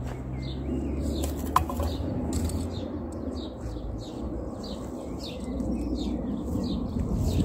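Small birds chirping over and over, short calls about twice a second, over a steady low rumble, with a single sharp click about one and a half seconds in.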